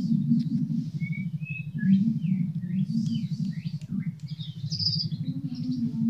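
Sunbird singing a quick, varied run of short high chirps and downward-sweeping notes. Under the song runs a steady low pulsing hum.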